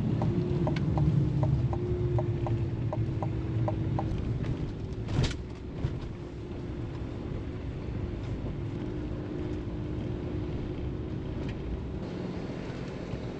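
Truck engine running with a steady low rumble, heard from inside the cab. A quick, even ticking runs through the first few seconds, and a single knock comes about five seconds in.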